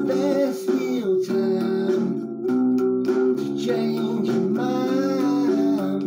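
Music: a song with guitar and a singing voice over steady held chords.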